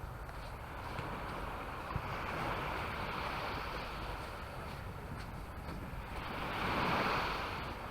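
Sea waves breaking and washing up on the beach, one wave swelling louder near the end and then falling away.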